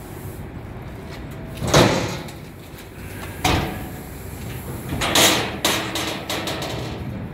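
Steel lid of a roofing tar kettle being levered open by its handle: metal clanks and scrapes from the lid and its linkage, loudest about two seconds in, with a sharp click a little later and another loud clank around five seconds in.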